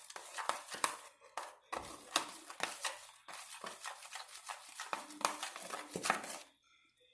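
Homemade shampoo slime being worked and squeezed, giving a quick, irregular run of sticky wet clicks and pops that stops about six and a half seconds in.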